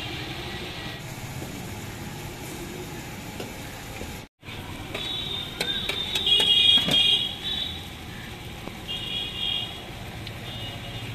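Hot oil sizzling in a large iron kadhai as puffed breads deep-fry, with a metal skimmer clicking against the pan. A brief dropout comes about four seconds in. After it, several high-pitched tones sound, loudest around six to seven seconds in and again briefly near the end.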